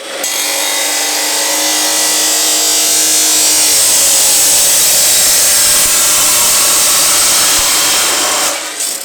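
A power tool cutting through a length of 3-inch pipe: one steady, loud cut that stops about eight and a half seconds in.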